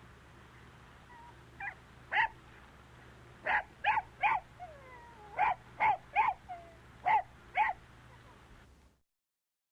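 An animal calling in short, sharp yelps, about ten of them, several in quick runs of two or three, over a low steady hum. The sound cuts off abruptly near the end.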